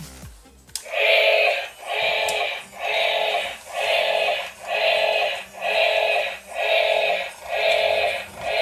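Toy battle robot's electronic sound effect played through its small speaker: a synthetic tone pulsing about once a second, about eight times, starting about a second in.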